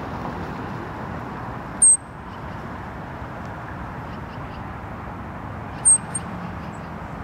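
Richardson's ground squirrel giving two short, shrill chirps about four seconds apart, each a brief high whistle that bends down in pitch, with its tail flicked up: its alarm call. Steady traffic hum runs underneath.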